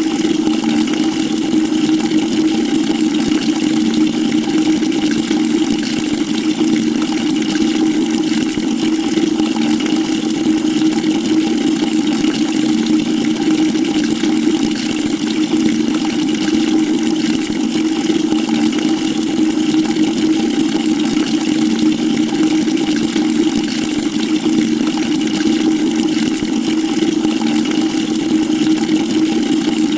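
Water pouring steadily into a bucket: an even, unbroken rush with a strong, steady low hum in it.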